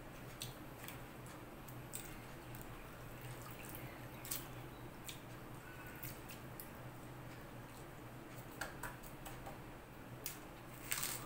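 Fingers mixing water-soaked leftover rice in a steel bowl: faint wet squishes and scattered light clicks over a low steady hum, with a slightly louder rustle near the end.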